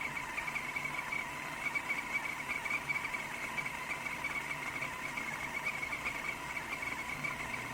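Stainless steel kettle of water heating toward the boil: a steady hiss with a fluttering high tone and a fainter lower tone.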